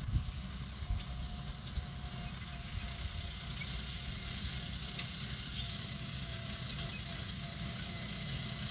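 John Deere 5405 tractor's common-rail diesel engine running steadily as the tractor drags a rear levelling blade over the field: a low rumble with a faint whine.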